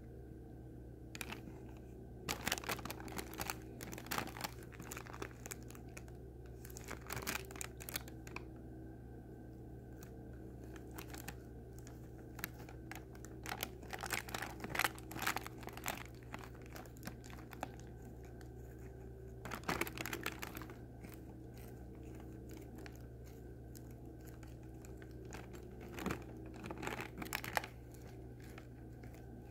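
Plastic bag crinkling in irregular bursts as a cat noses into it and tugs at it with its mouth, over a steady low hum.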